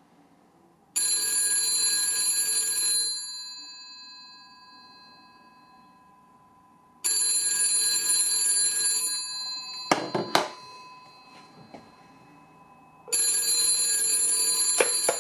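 A telephone's mechanical bell ringing three times, each ring about two seconds long and fading out, with about four seconds between rings: another telephone on a second line being called. Brief knocks about ten seconds in and near the end.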